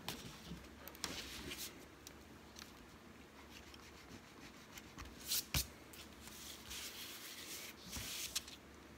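Pencil and paper being handled while drawing: scattered short scratchy rustles and rubbing, with a light sharp tap about halfway through.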